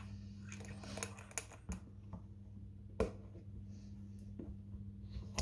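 Light clicks and knocks of a mug being handled and set under a capsule coffee machine, with one sharp knock about three seconds in, over a steady low hum.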